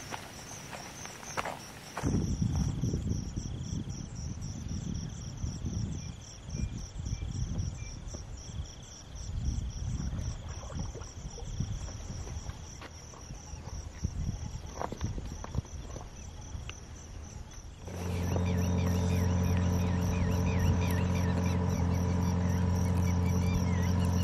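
Insects trilling with a fast, steady pulse over an uneven low rumble. About three quarters of the way through, a passing boat's engine comes in as a steady low drone and becomes the loudest sound.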